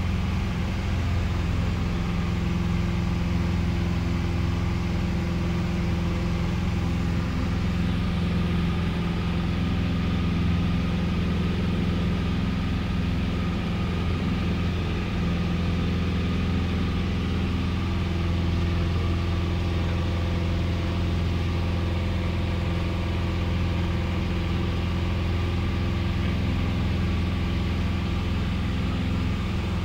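Piston engine and propeller of a small high-wing light aircraft droning steadily in flight, heard from inside the cabin.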